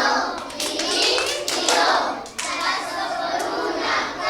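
Children singing along with hand clapping.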